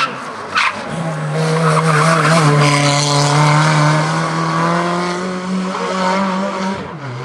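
Historic car drifting: the engine is held at high revs, creeping slowly higher, while the tyres squeal, then the revs drop suddenly near the end. Two sharp cracks come in the first second.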